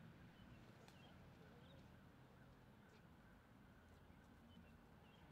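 Near silence: faint outdoor ambience with a few faint, brief bird chirps.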